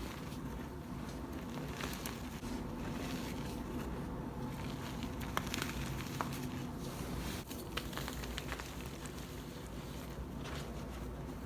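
Gym chalk being crumbled and crushed by hand: a steady run of small crackles and crunches with scattered sharper snaps.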